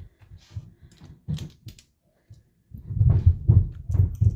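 Small plastic building-block pieces clicking and rattling as they are picked up and snapped together by hand. In the second half comes a quick run of dull thumps, about three a second, as the pieces are pressed down hard onto the assembly.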